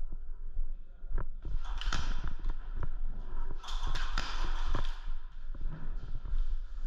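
Irregular footsteps and knocks with rustling of clothing and gear as an airsoft player moves through a close-quarters arena, with two longer stretches of rustling about a second and a half in and around four seconds in.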